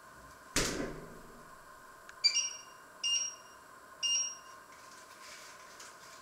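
A refrigerator door thumps shut, then an electronic appliance beeper sounds three high beeps, each about half a second long and roughly a second apart.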